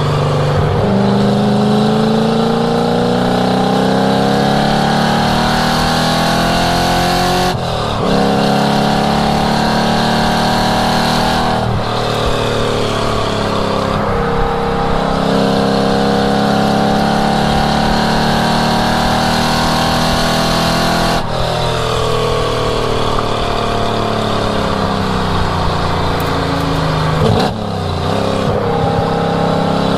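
1967 Ford Mustang's engine run hard on a race track. The pitch climbs in long pulls, broken by abrupt drops at gear changes about a quarter and two-fifths of the way in. After one more long pull it drops sharply, falls away for several seconds with a quick blip, then climbs again near the end.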